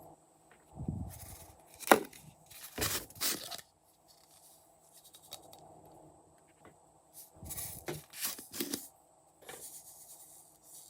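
Glossy slime being mixed and squeezed by hand: irregular sticky squelches, crackles and sharp pops. They come in two busy clusters with a quieter stretch in the middle.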